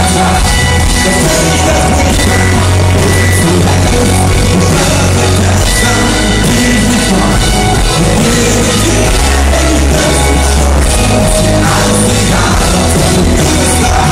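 Live pop-rock band playing loudly, recorded from the crowd, with a heavy bass that booms and dominates the low end.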